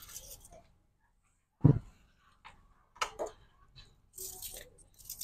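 Handling noises from pulling and reading an engine oil dipstick: a sharp knock about a second and a half in, a few scattered clicks, and a short rustle near the end.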